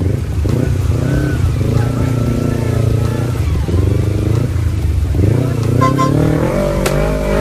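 Motorcycle and car engines running in busy street traffic, with people shouting over the engine noise. A brief horn toot sounds about six seconds in.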